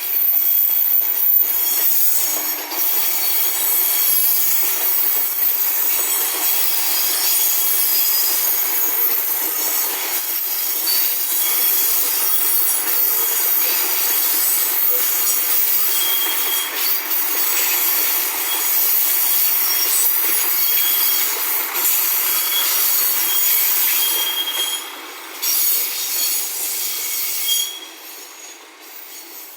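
A train passing close by, its wheels squealing thinly over the rails throughout. The sound comes in suddenly, stays loud and falls away near the end.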